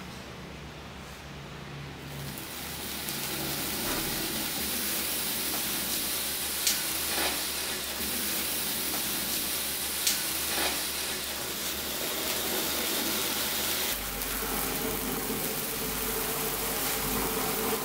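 Firework spark fountains in the craters of a model volcano hissing steadily as they spray sparks. The hiss builds up about two seconds in and is broken twice by a sharp pop.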